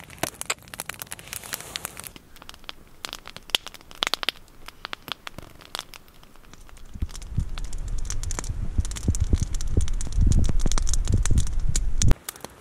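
Wood fire crackling and popping with sharp irregular snaps. For the last five seconds or so a low rumble builds up, then cuts off abruptly.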